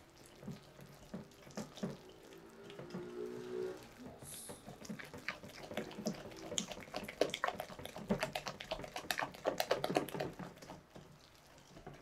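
Hand whisk beating cake batter in a glass mixing bowl: quick clicks of the whisk against the glass with wet slapping of the batter, busier from about four seconds in.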